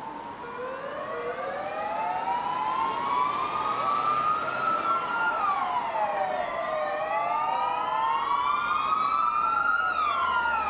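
Emergency-vehicle sirens wailing, at least two sounding together out of step, each rising slowly in pitch for about four seconds and then falling back more quickly, over and over; they grow louder over the first couple of seconds and then hold.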